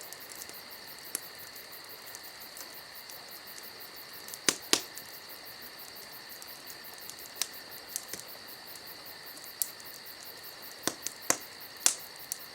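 Insects chirping in a steady high trill, with a few sharp clicks, two about four and a half seconds in and several more near the end.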